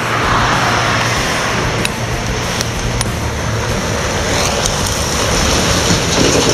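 MAN truck's diesel engine running as it drives past towing a drawbar trailer, getting louder as it comes close, with tyre noise and a few sharp rattles.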